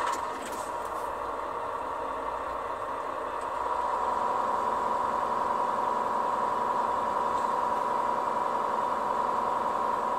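Semi-truck diesel engine idling just after start-up, heard from inside the cab, with a steady high hum; it gets a little louder about three and a half seconds in. The engine is running to build air brake pressure toward 120 psi.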